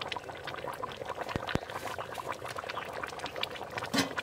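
Pork and radish curry bubbling at a boil in a wide metal pan: a dense, irregular run of small pops, with a couple of sharper clicks about a second and a half in and a louder pop near the end.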